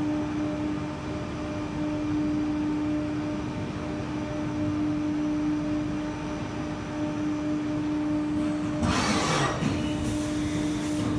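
SW BA 422 CNC horizontal machining center running with a steady whine. About nine seconds in, coolant spray starts hissing over the work area.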